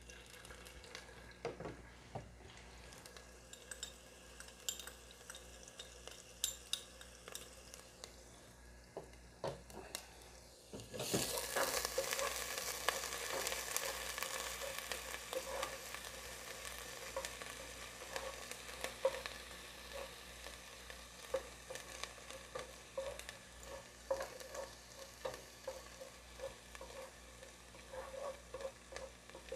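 Chopped onion frying in cooking oil in a metal pot, stirred with a wooden spatula. At first there is only faint scraping and tapping. About eleven seconds in a steady sizzle sets in suddenly and continues, with the spatula knocking and scraping against the pot.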